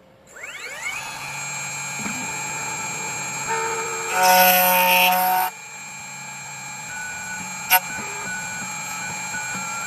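CNC key cutting machine at work on a key blank. Its motor spins up with a rising whine about half a second in and then runs steadily. From about four seconds in there is a louder, harsher stretch lasting about a second and a half, and a single sharp click comes near the end.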